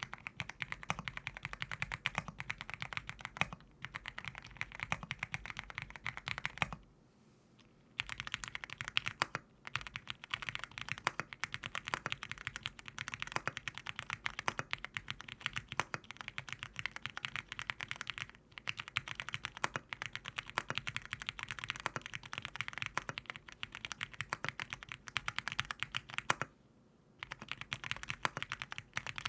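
Fast, continuous typing on a 75% mechanical keyboard, a dense run of keystroke clacks. It pauses briefly about seven seconds in and again near the end.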